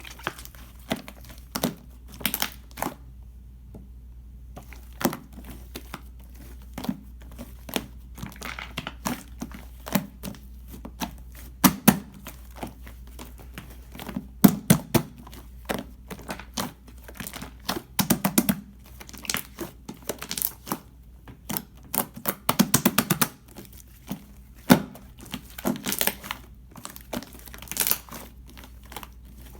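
Clear slime mixed with shaving foam being squished and worked by hand: irregular sticky pops and crackles, with a few quick runs of clicks.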